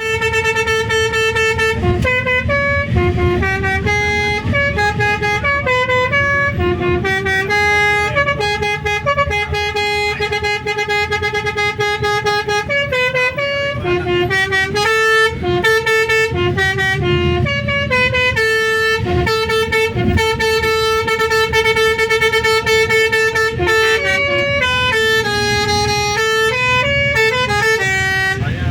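Bus telolet horn, a multi-tone horn fitted to an Indonesian bus, playing a melody as a run of held notes that step up and down in pitch, with vehicle engine noise underneath.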